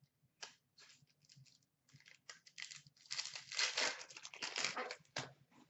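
Foil wrapper of a 2015-16 O-Pee-Chee Platinum hockey card pack crinkling and being torn open by hand. A few short crinkles come first, then a dense run of crackling about three seconds in, and one last crinkle near the end.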